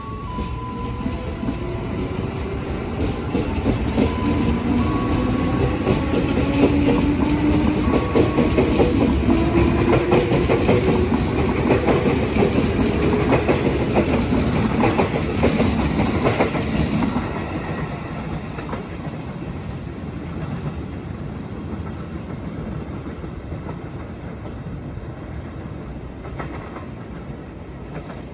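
An ex-JR East 205-series electric commuter train pulling away. Its traction motor and gear whine rises in pitch as it gathers speed, and its wheels clack over the rail joints. The sound fades after about seventeen seconds as the train leaves.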